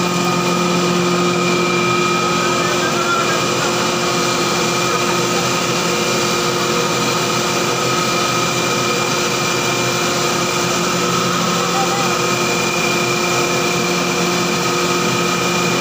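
Rice husk grinding machine running steadily with its blower and cyclone, a constant loud machine hum with a high-pitched whine over it.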